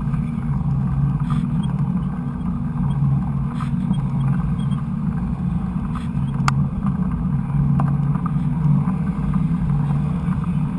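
Steady low rumble of wind and riding noise on a helmet- or bike-mounted action camera during a mountain-bike ride, with a few sharp clicks and rattles from the bike.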